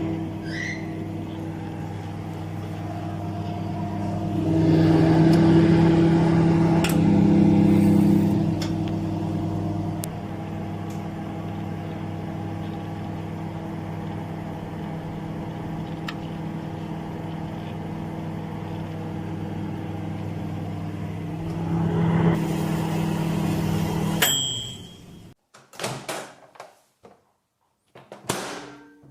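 Microwave oven running with a steady hum that swells louder twice. It stops near the end with a sharp click and a short high beep, followed by a few brief quieter sounds.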